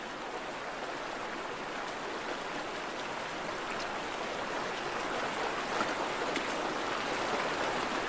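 Stream water flowing in a steady, even wash that slowly grows a little louder.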